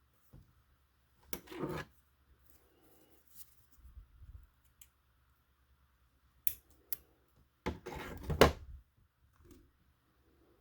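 Small RC shock parts clicking and rattling as they are handled and fitted back together: a short rattle about a second and a half in, two sharp clicks around seven seconds, and a longer, louder rattle near eight seconds.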